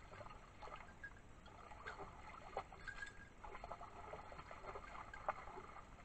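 A hunting dog wading through a shallow stream, its paws splashing irregularly in the water over the faint trickle of the stream, with a sharper splash about five seconds in.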